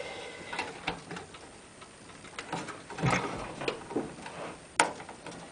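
A stick of RAM being handled and pressed into a motherboard memory slot: scattered small plastic clicks and knocks, then a sharp click near the end as it seats.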